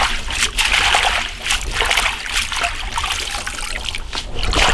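Water splashing and trickling as sprigs of mint are swished and rinsed by hand in a bowl of water, in irregular splashes.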